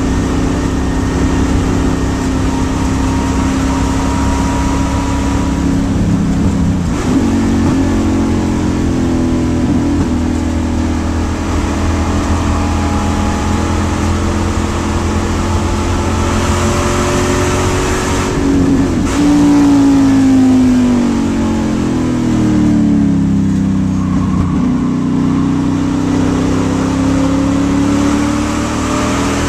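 LT1 V8 of a 1994 SCCA World Challenge Camaro race car at speed on track, heard from inside the cockpit, its revs climbing and falling through corners and straights. The pitch drops sharply about seven seconds in and again around nineteen and twenty-four seconds as the car shifts or lifts, then climbs again.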